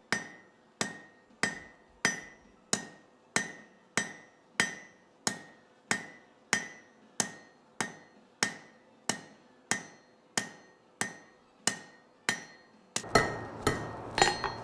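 Blacksmith's hammer forging hot steel on an anvil, drawing out the tip of a leaf: steady blows about three every two seconds, each with a short metallic ring. Near the end a quicker cluster of a few blows comes over a steady background hiss.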